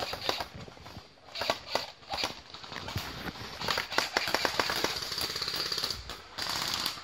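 Airsoft guns firing in rapid bursts, a quick run of sharp clicking shots several a second that is densest about halfway through, mixed with footsteps running over the forest floor.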